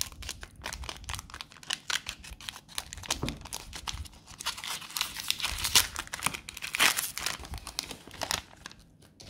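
A trading-card pack wrapper being torn open and crinkled in the hands: a long run of rapid crackles, busiest a little past the middle and thinning out near the end.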